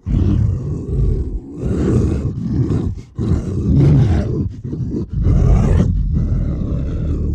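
Movie-monster growl sound effect for the Kothoga creature, voiced by a human performer: a run of four or five rough, deep growls of one to two seconds each, one after another with short breaks, ending abruptly.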